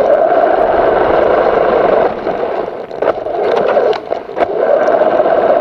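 RC car driving over gravel, heard from its own onboard camera: a loud, steady rush of tyres on gravel and drivetrain noise, easing briefly about two seconds in and again around four seconds.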